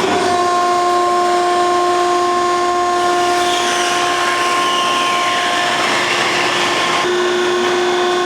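Tire baler's hydraulic power unit running: a loud, steady machine whine with a strong hum under it, starting abruptly, with a slight change in tone about seven seconds in.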